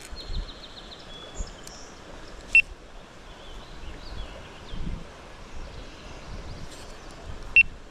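Birds singing and chirping over stream-side outdoor ambience, with low rustle and handling noise. A short, sharp, high-pitched tick sounds twice, about two and a half seconds in and again near the end, louder than everything else.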